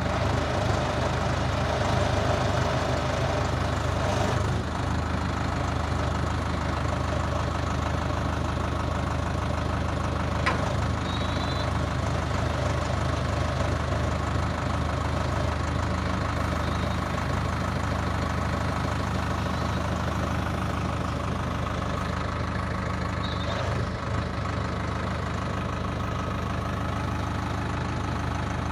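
Sonalika Worldtrac 60 RX 4WD tractor's diesel engine running at a steady speed while the tractor works its front loader.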